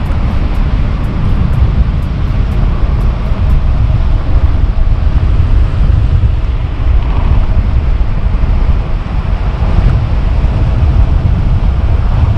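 Heavy, steady wind rumble on the microphone from riding an electric tandem bicycle at about 30 to 34 mph.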